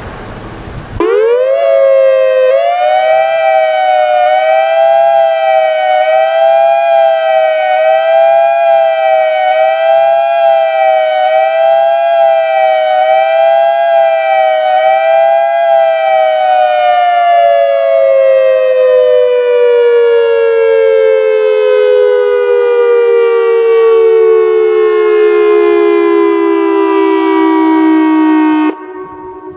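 Whelen WPS 2740 dual-tone electronic warning siren sounding a steady alert signal. The sound climbs quickly about a second in, holds two close pitches with a slight regular wobble, then winds slowly down in pitch over the second half, dropping sharply in loudness near the end.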